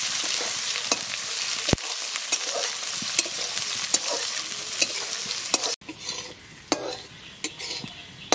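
Chopped onions sizzling in hot oil in a metal wok, stirred and scraped with a steel spatula. About six seconds in, the sizzle drops away sharply, leaving quieter, scattered scrapes and taps of the spatula.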